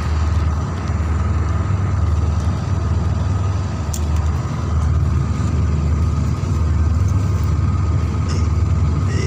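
Air-conditioner outdoor unit running: a steady, loud low hum from the compressor and fan, with a thin steady whine above it.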